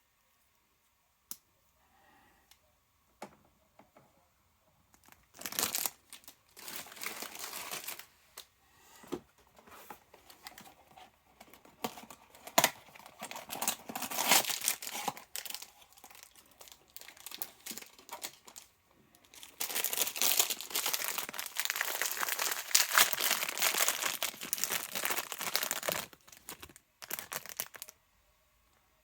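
Toy packaging being crinkled and torn open by hand, in several bursts of rustling with the longest near the end, after a few light clicks at the start.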